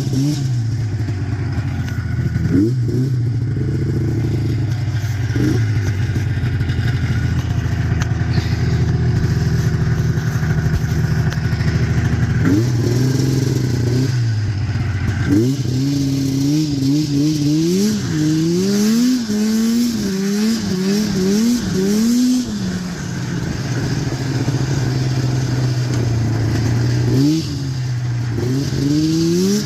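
1990 Arctic Cat EXT 530 snowmobile's two-stroke engine running while being ridden. It mostly holds an even speed with a few short blips of throttle, then revs up and down repeatedly in a quick run through the middle, and rises again near the end.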